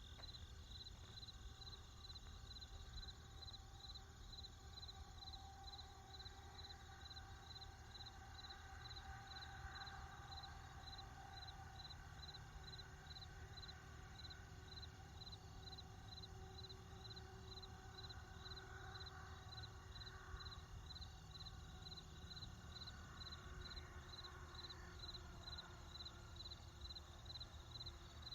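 Crickets chirping in a steady, evenly spaced pulse, over a faint low rumble of distant traffic.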